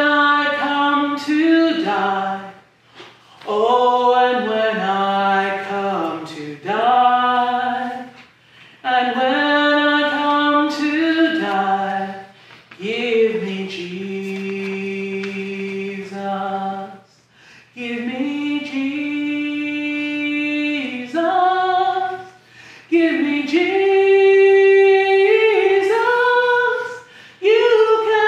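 Unaccompanied voices singing a slow song in phrases of a few seconds each, with long held notes and short breaks between phrases.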